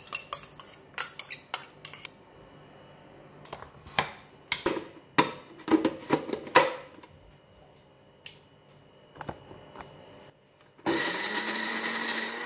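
A metal spoon clinks and scrapes against a glass bowl and a plastic blender dry-mill cup in sharp, scattered knocks. About eleven seconds in, a Panasonic MX-900M blender's dry mill switches on and runs steadily, grinding fried garlic, dried shrimp and belacan, its motor hum rising a little in pitch.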